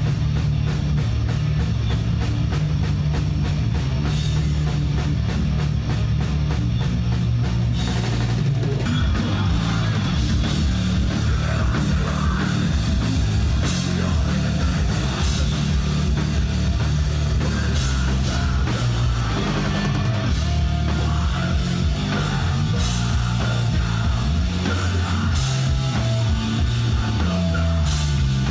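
Heavy metal band playing live: electric guitars over a pounding drum kit, with fast, even drum hits through the first several seconds.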